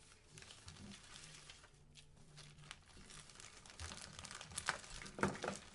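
Faint crinkling and rustling of a clear plastic zip bag and paper as craft photos and papers are handled, with louder crinkles in the last second or two.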